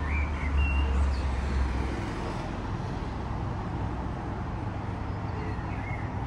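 Road traffic on a town street: an even background hum with a low rumble, loudest in the first two seconds. A few faint bird chirps come through near the start and again near the end.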